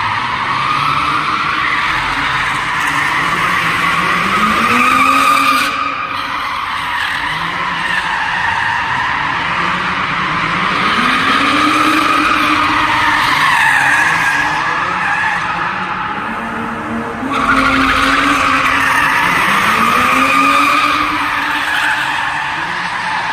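BMW drift car sliding with its tyres squealing continuously while the engine revs rise and fall again and again. The sound changes abruptly about six seconds in and again near seventeen seconds.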